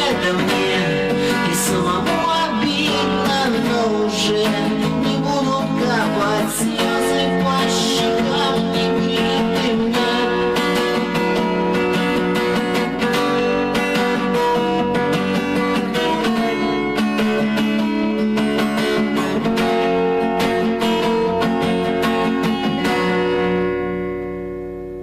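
Instrumental music led by a strummed acoustic guitar, fading out near the end.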